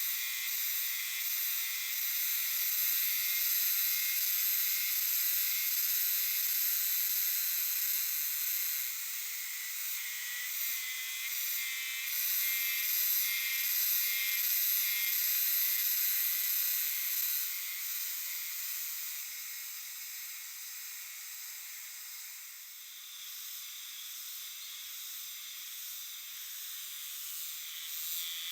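A chorus of Euterpnosia chibensis cicadas calling in a dense, high-pitched buzzing din. It eases off somewhat about two-thirds of the way through and swells again near the end.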